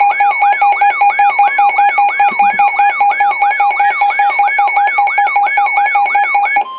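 Electronic emergency-alert warning tone: a rising chirp repeating about three times a second over a steady, rapidly pulsing beep. It stops just before the end and gives way to a short steady tone.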